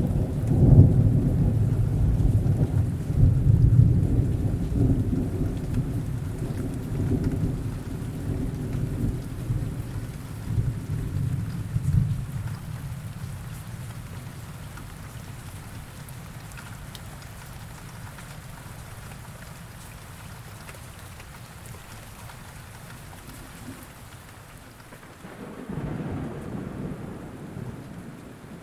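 Steady rain falling, with a long rolling rumble of thunder at the start that slowly fades over about twelve seconds, and a second, weaker roll of thunder near the end.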